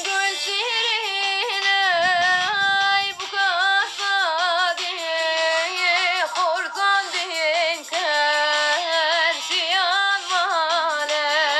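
A woman singing a slow, ornamented melody, her voice sliding and wavering between held notes.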